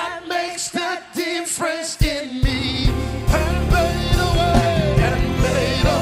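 Live gospel worship music with singing over a band. The bass and drums drop back for about the first two seconds, then come back in with a steady beat.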